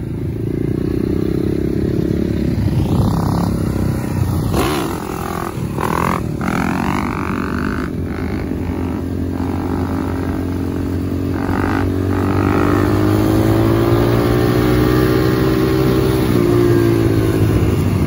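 Four-stroke dirt bike engine under way, revving up a few seconds in and then running steadily with its pitch slowly rising.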